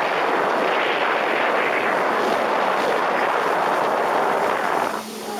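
Loud steady rush of wind and water on a speedboat running at speed, buffeting the microphone. It eases suddenly about five seconds in.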